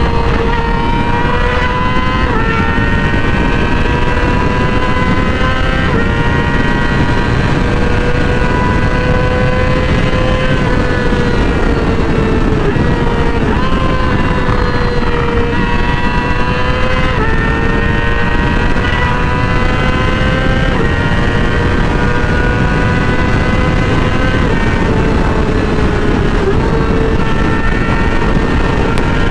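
Yamaha YZF-R6's inline-four engine running high while riding, its pitch creeping up and then dropping back several times as the throttle and gears change, over a steady rush of wind and road noise.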